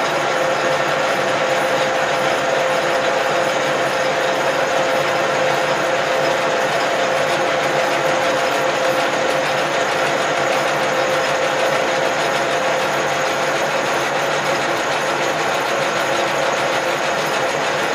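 Cincinnati No. 2 milling machine running its power table feed, the table traversing steadily toward the end of its travel: an even whir of the motor and feed gearing with a steady hum.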